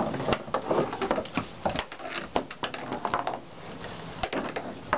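Irregular clicks, knocks and scuffs on a wooden deck as a Great Dane puppy tussles with a push broom, thickest in the first three seconds and thinning out after.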